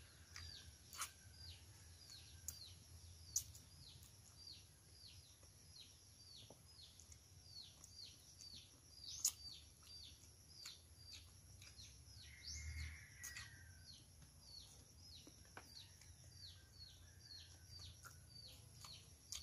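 Faint, steady series of short falling bird chirps, about two a second, with a few soft clicks and a brief louder sound about twelve seconds in.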